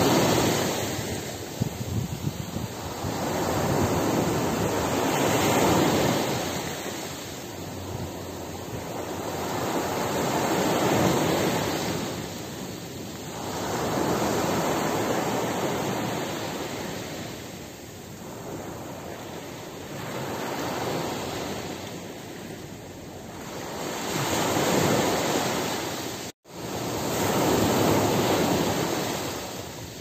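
Sea waves breaking and washing up a beach, each one swelling and fading again about every five or six seconds. The sound cuts out for a split second near the end.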